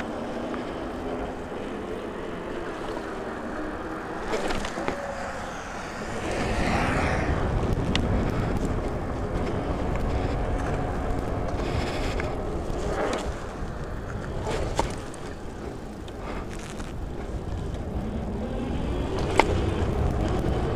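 Super 73 R-Series electric bike rolling over concrete: steady tyre noise with wind buffeting the microphone, louder from about six seconds in, and a few sharp knocks, the loudest near the end.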